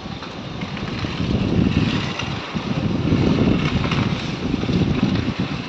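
Strong gusty wind buffeting the phone's microphone, rumbling in surges that swell about three times, over a steady hiss.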